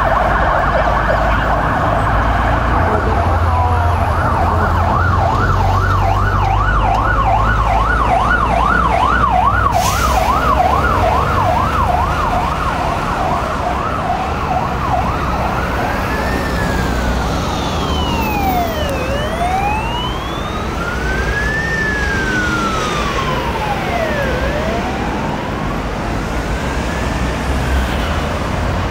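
Emergency sirens of a fire engine and an ambulance: a fast yelp sweeping up and down about three times a second over a heavy truck engine's low rumble, giving way about halfway through to a slow wail that rises and falls roughly every five seconds, with a fainter, higher second siren overlapping it.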